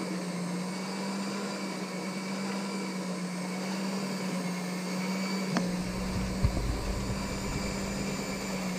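Electric hand mixer running steadily at medium speed, its beaters whipping cream cheese frosting to mix in the vanilla and sugar. A sharp click comes a little past halfway, and after it a low rumble joins the motor hum.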